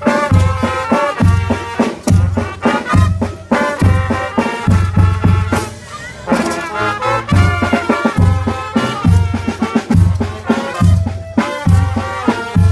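Brass band playing a lively dance tune, with horn melody lines over a steady low beat that comes about every two-thirds of a second.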